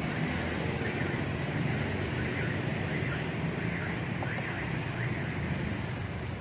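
Steady hum of street traffic, mostly motorbikes and cars passing on the road.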